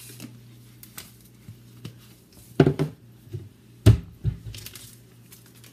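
Kitchen handling noise as a cook works with ingredients: crinkling and rustling of a seasoning packet and small clicks, with two heavier thumps about two and a half and four seconds in, over a steady low hum.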